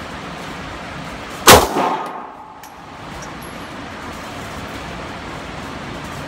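A single pistol shot about one and a half seconds in, with a short tail after it, over steady background noise.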